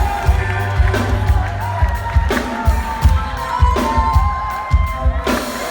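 Live band music with a steady pounding kick drum under sustained melody lines, over a cheering crowd; the beat stops shortly before the end as the crowd noise carries on.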